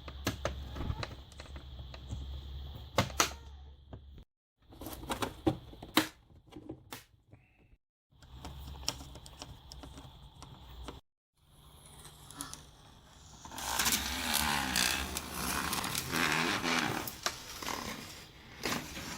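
Plastic laptop screen bezel being handled and pressed into place: sharp clicks and taps as the clips are worked on, then a louder stretch of rubbing and scraping of plastic under the hands in the second half. The sound cuts out abruptly a few times.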